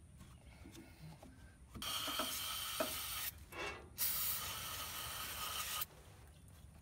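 Aerosol spray can hissing in two bursts of about a second and a half to two seconds each, flushing reaming shavings out of a VW bus front axle beam's center pin bore.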